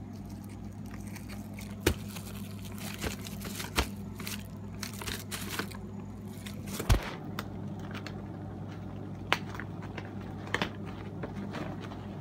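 Clear plastic wrapping around a VHS tape crinkling and crackling as it is handled, with scattered sharp crackles, the loudest about seven seconds in. A steady low hum lies underneath.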